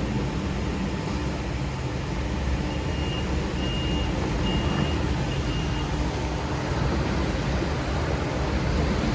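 Merlo telescopic handler's diesel engine running steadily. A reversing alarm beeps four times, a little under once a second, starting between two and three seconds in.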